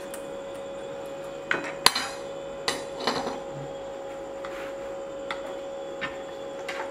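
Flat steel bar pieces clinking against each other and the cast-iron bench vise as they are stacked and clamped for a San Mai billet. There are several sharp metallic clicks, the loudest about two seconds in, over a steady faint tone.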